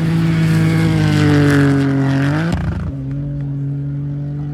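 Rally car engine running hard at high revs, its note climbing, then a short loud burst of noise a little over halfway, after which the engine sound drops and turns duller.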